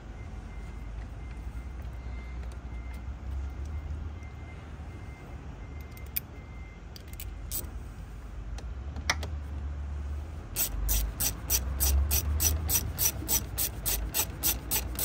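Ratcheting screwdriver clicking in a quick even rhythm, about three clicks a second, as a small plastic trim screw in a dash panel is driven back in. The clicking starts about ten and a half seconds in; before that there are only a few light taps from handling the screw and tool.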